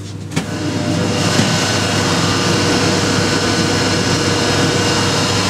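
A click, then a loud, steady rush of compressed air that builds within the first second and holds as the EP20 electric locomotive's parking brake is released, over the constant low hum of the locomotive's running machinery.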